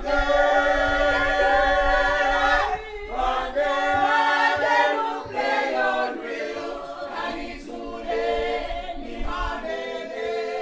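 A group of voices singing together in harmony, choir-style and largely unaccompanied, in long held phrases.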